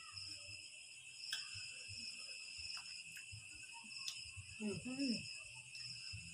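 Crickets chirping steadily in a continuous high trill at several pitches, with a few light clicks and a brief low voice sound, like a hum or murmur, about five seconds in.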